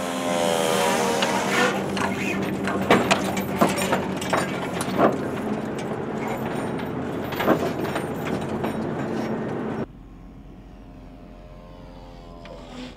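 ScanEagle drone's engine and propeller buzzing past close by with a falling pitch, then a run of sharp clicks and rattles as the drone catches the rope of its recovery boom. About ten seconds in, the sound drops abruptly to a quieter steady hum.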